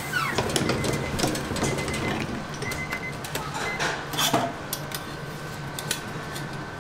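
Hot steel prawn-cracker press being clamped shut with its screw handle: a falling squeal as it closes, then crackling and sizzling from the plates with metal clicks and clanks from the clamp, loudest about four seconds in.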